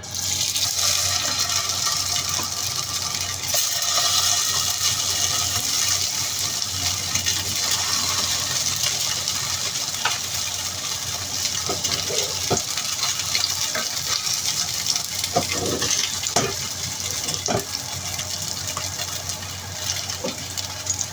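Food hitting hot oil in a wok and frying with a loud, steady sizzle that starts all at once. A spatula clicks and knocks against the wok now and then.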